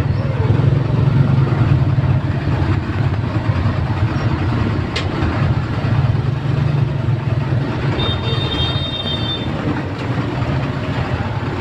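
Lorry and motorbike engines idling at close range in stopped traffic, a steady low engine rumble. A brief high-pitched tone sounds about eight seconds in.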